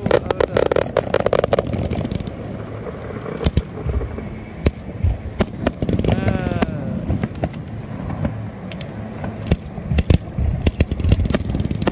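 Aerial fireworks going off: a fast, irregular string of bangs and crackles as shells burst overhead.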